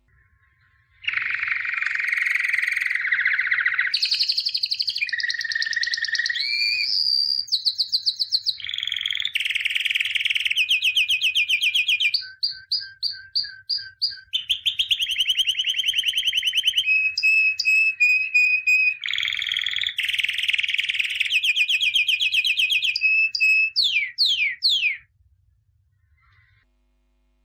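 A songbird singing one long, unbroken song of varied fast trills, rapid repeated notes and quick sweeping whistles. It starts about a second in and stops abruptly near the end.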